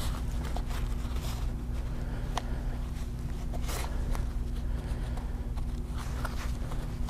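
Gloved hands handling a tie on a coil of heavy rubber-jacketed 4/0 feeder cable: scattered rustles and light clicks, over a steady low hum.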